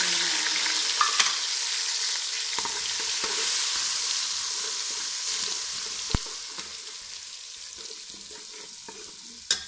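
Chopped tomatoes sizzling hard as they hit hot ghee with fried garlic and spices in a metal pot, the sizzle slowly dying down as they start to cook. They are stirred with a metal spatula, with a few sharp clicks against the pot, the loudest near the end.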